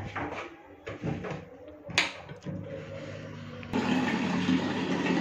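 A sharp click about two seconds in, then a kitchen tap turned on and running steadily from a little past halfway, filling a plastic water bottle.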